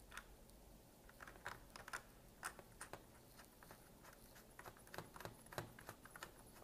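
Faint, irregular small plastic clicks and taps from the hot-shoe mount being fitted and screwed onto the base of a Yongnuo YN-300 III LED video light.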